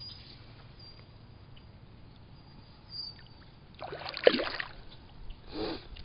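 Water sloshing and splashing in weedy shallows: a short splash about four seconds in, and a smaller one near the end.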